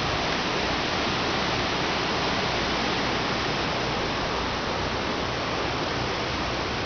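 Steady, even roar of a river in flood, raging with runoff from hurricane rains.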